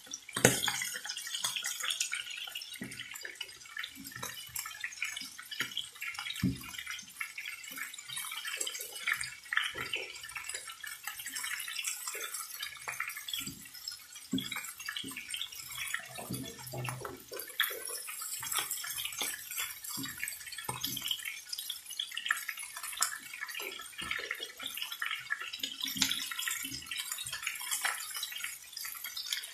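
Chicken drumsticks frying in hot oil in a pan: a steady sizzle with many small irregular crackles and pops, and one sharper click just after the start.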